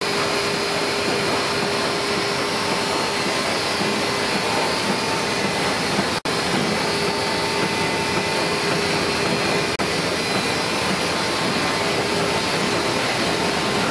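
Miller TP 104 sheetfed offset printing press running with a steady mechanical whir and hum. The sound cuts out for an instant about six seconds in and dips again near ten seconds.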